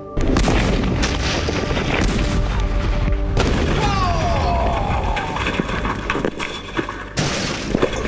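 Water heater tank exploding under about 335 psi: a deep thud as it goes, then a long low rumble. Further sharp bangs and crashing debris come about two seconds in, three and a half seconds in and near the end.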